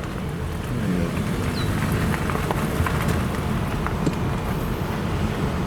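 Steady low rumble of vehicle and wind noise, with scattered light ticks and a brief faint chirp about a second and a half in.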